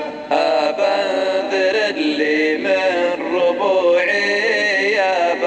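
Chanted recitation of a Nabati Arabic poem in the drawn-out sheilah style: a voice holding long, wavering notes that bend up and down, with a short break just after the start.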